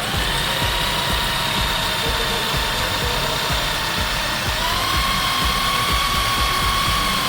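Electric drill running steadily with a hole saw cutting around a stuck alloy wheel bolt: a steady motor whine over a rough, chattering rumble, the pitch stepping up a little about halfway through as the drill speeds up.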